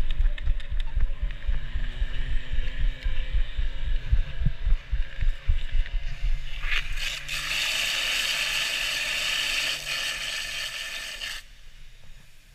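Fire-sport attack run: heavy, irregular thumps and wind buffeting as the crew runs with the charged hose line, with a motor hum that rises slightly in pitch. About six seconds in, the nozzle opens into a loud, steady hiss of the water jet spraying at the target. The hiss cuts off suddenly near the end.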